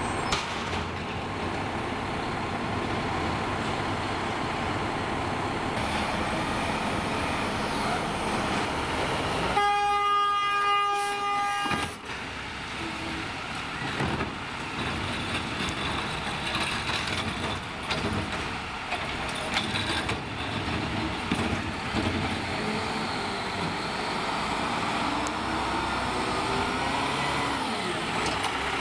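Peterbilt McNeilus ZR side-loader garbage truck running steadily, with one horn blast of about two seconds near the middle.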